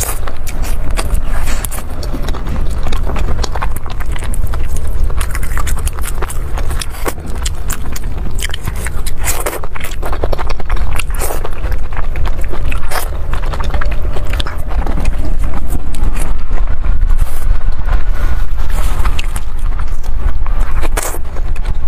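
Close-miked eating: biting and chewing sauce-glazed skewered meat, with many sharp clicks and crackles through the chewing over a steady low rumble.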